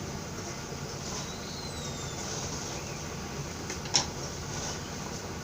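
Hands kneading a mashed beef-and-potato cutlet mixture in a bowl, over a steady background hum, with one sharp click about four seconds in.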